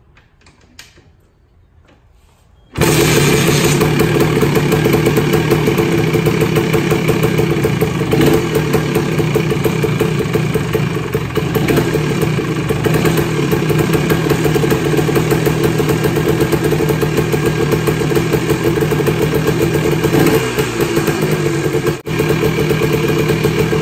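Honda ATC250R three-wheeler's two-stroke engine starting from cold: it catches suddenly about three seconds in and then runs steadily at idle, with one brief drop near the end.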